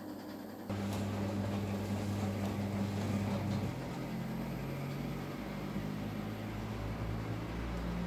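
Candy Superautomatic 98 vintage washing machine's drum motor switching on with a steady hum about a second in, then the drum tumbling wet towels in soapy water as the wash phase starts; the hum shifts in pitch about four seconds in.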